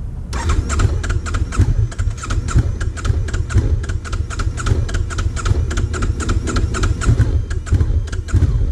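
Honda CB500X's electric starter cranking its parallel-twin engine, a steady rhythmic chugging of about five or six pulses a second, turning over without catching. The bike is hard starting, which the rider suspects may come from a valve out of spec.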